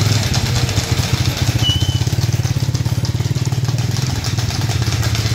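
Motorcycle engine running steadily at low revs, a fast, even pulsing hum. A short, thin high tone sounds briefly about one and a half seconds in.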